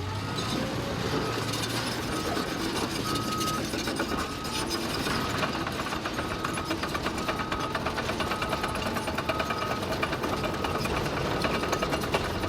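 Construction machine running and moving, its engine and running gear giving a steady mechanical clatter, with a travel/back-up alarm beeping at an even rate of about one and a half beeps a second.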